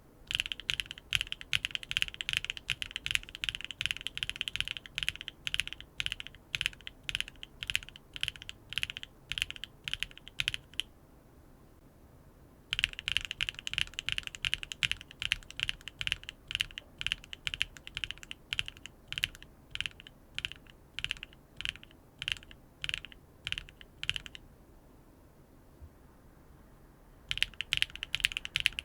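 Mechanical keyboard switches clacking as they are pressed and released repeatedly, about three to four strokes a second, in three runs with short pauses between. It is a sound comparison of HMX Sprite linear switches against other switches.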